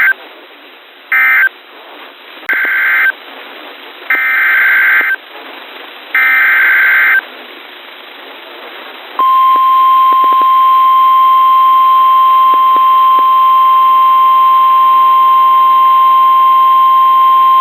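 Emergency Alert System broadcast on NOAA Weather Radio. First come short, screechy SAME digital data bursts: three end-of-message bursts, then three for the next alert's header. About nine seconds in, the steady 1050 Hz weather radio warning alarm tone begins and holds to the end.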